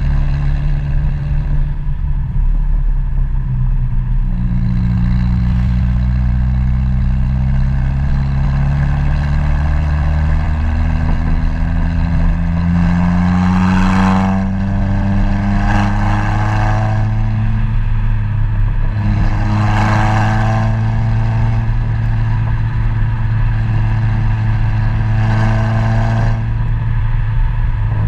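A vehicle engine running continuously, its pitch rising and falling as the vehicle speeds up and slows. Several brief, louder rushes of noise come over it: one about halfway through, two more soon after and one near the end.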